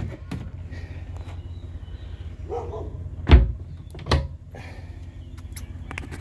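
A hatch on a fibreglass boat being handled: two dull knocks a little under a second apart, with lighter clicks around them, over a low steady wind rumble on the microphone.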